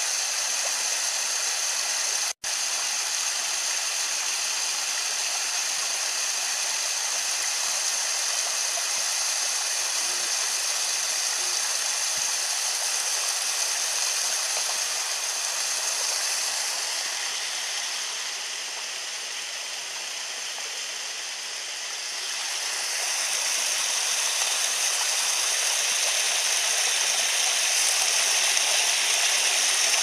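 Steady rushing of water from a waterfall and the stream running below it through snow and ice, cut by a momentary drop-out about two and a half seconds in.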